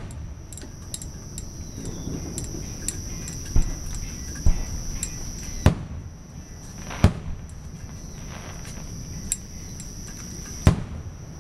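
Aerial fireworks shells bursting: about six sharp booms at irregular intervals, with strong ones right at the start, near the middle and near the end. Under them runs a steady high chirring of crickets.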